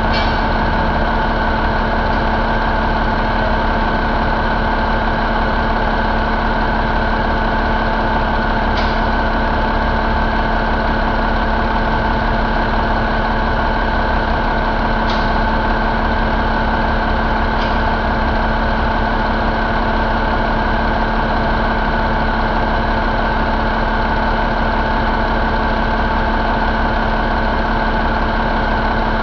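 Cummins ISX15 inline-six diesel engine idling steadily on a run stand, with three faint clicks partway through.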